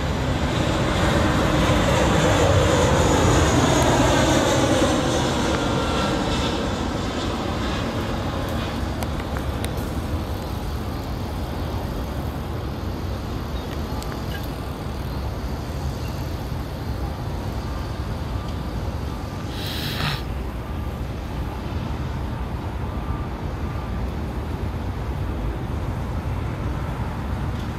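Jet airliner passing close by: its engine noise is loudest a few seconds in and slides down in pitch as it goes past, then settles into a steady rumble as it moves away. A brief sharp noise about twenty seconds in.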